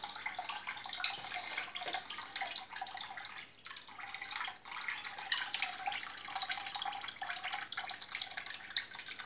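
Water trickling and bubbling steadily from a small filter outlet into a shallow turtle tub, with small irregular drips and plinks.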